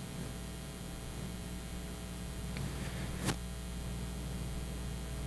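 Quiet room tone: a steady low electrical hum with a light hiss, and one short click a little over three seconds in.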